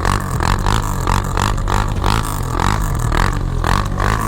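Suzuki LTZ400 quad's single-cylinder four-stroke engine running loudly with a regular pulse about three times a second, as the quad tries to pull free of deep snow.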